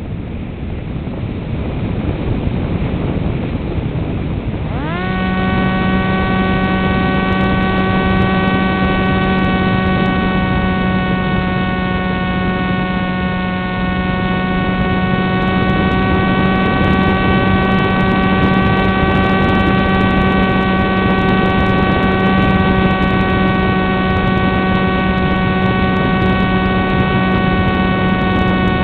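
Soft hiss, then about five seconds in a steady electric hum with many overtones starts suddenly, rising briefly in pitch before holding level. It is picked up by the onboard camera of a crashed RC foam flying wing.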